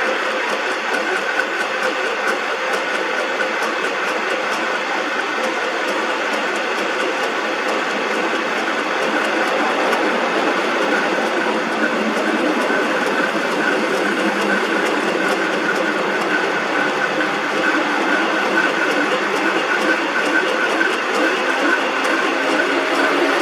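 Metalworking machine switched on and running steadily with a rattling, rhythmic mechanical clatter and a steady whine.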